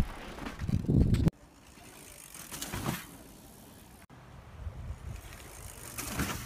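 Wind rumble and trail noise on a camera carried by a mountain biker riding a dirt trail, cutting off suddenly about a second in. Then a quieter outdoor background, with a mountain bike's tyres rolling through a dirt berm getting louder near the end.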